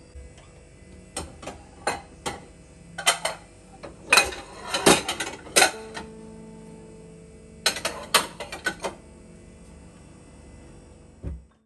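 Dishes and kitchenware clinking and knocking as they are put away into kitchen drawers and a wall cabinet's dish rack, in short clusters of sharp clinks. A single dull thud near the end as the cabinet's lift-up door is shut.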